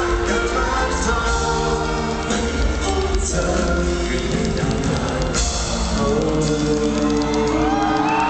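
Live band and several singers performing a Cantonese pop song, with steady drums and bass under the vocals. Near the end the bass and drums drop out and the crowd begins to scream and cheer in high rising whoops.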